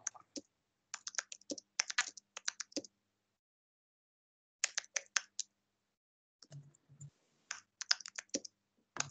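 Typing on a computer keyboard: quick runs of keystrokes in several short bursts with brief pauses between them.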